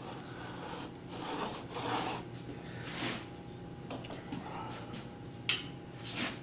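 Wooden router jig handled and slid on its base: a few short wood-on-wood scraping rubs, then a sharp click about five and a half seconds in and a lighter one just after. A steady low hum runs underneath.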